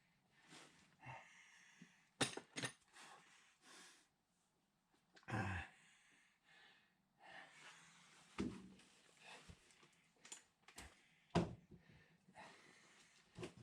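Scattered knocks, clicks and rustling of metal parts and tools being handled, a few sharper knocks standing out.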